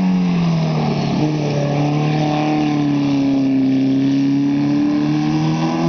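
Mini sprint car's engine running steadily around the track, its pitch dipping about a second in and rising a little near the end.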